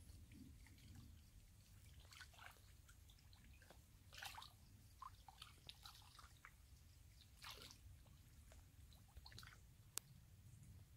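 Faint, irregular squelches and small splashes of hands groping through shallow muddy water, with one sharp click near the end.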